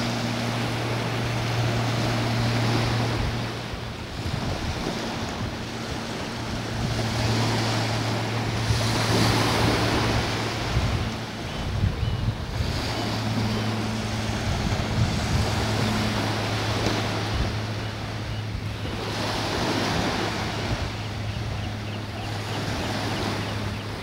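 Small waves washing onto a sandy beach, the noise swelling and fading every few seconds, with wind buffeting the microphone and a steady low hum underneath.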